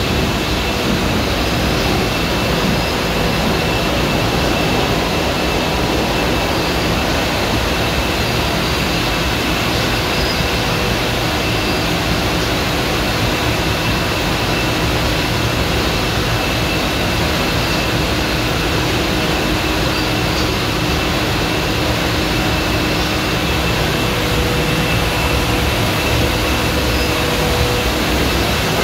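Air dryer blowers of a 1993 HANNA automatic car wash running steadily: a loud, even rush of air with a steady high whine.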